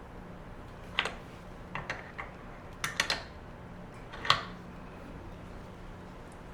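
About eight short, sharp clinks and taps of small metal objects being handled, over a steady low hum. The clinks are scattered between about one and four and a half seconds in, and the last is the loudest.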